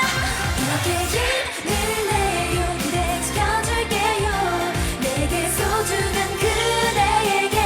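K-pop song with a girl group's vocals singing over a pop backing track with a steady beat.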